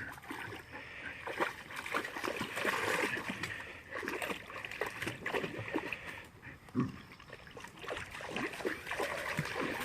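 An Australian cattle dog splashing and pawing about in shallow creek water, in uneven bursts.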